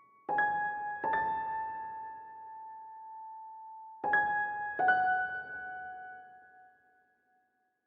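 Background music: slow piano notes, struck in two pairs and left to ring out, fading away near the end.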